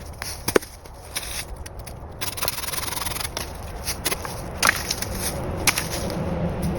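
Wood being worked by hand: a rough rubbing and scraping that turns steadier after about two seconds, with a few sharp clicks.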